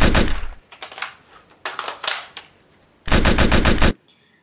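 Machine-gun fire sound effect in rapid bursts of about eight shots a second. Fainter short rattles fall in between, and a second loud burst near the end cuts off suddenly.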